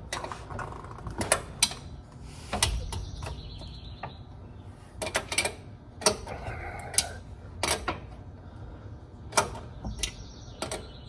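Irregular sharp metallic clicks and clinks, some single and some in quick clusters of three or four, from hands and tools working at a floor jack under a car.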